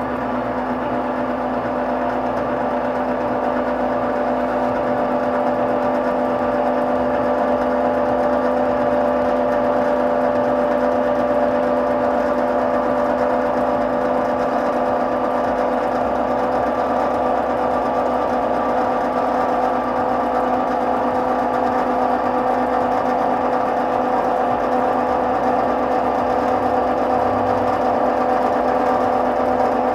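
Buss Model 44 40-by-8-inch planer running with no wood in it: a steady whir of the 30 hp main motor and four-knife cutterhead, with several held tones, while the motorized bed raise is engaged and the table climbs.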